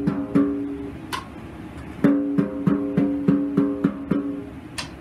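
Snare drum's top (batter) head tapped by hand, each tap ringing with a clear pitch as it is tuned to the note D. Two taps near the start, then a quick even run of about eight taps, roughly three a second.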